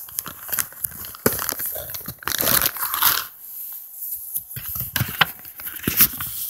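Paper cards and envelopes rustling and crinkling as hands rummage through a bag of them, in irregular bursts with a few sharp crackles; the loudest stretch comes about two and a half to three seconds in.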